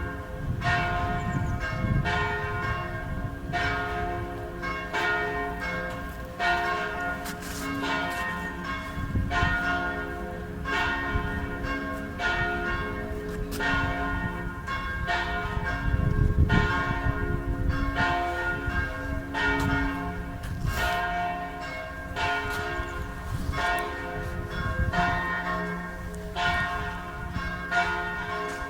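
Several church bells ringing together, struck about once a second, their tones overlapping and ringing on between strokes.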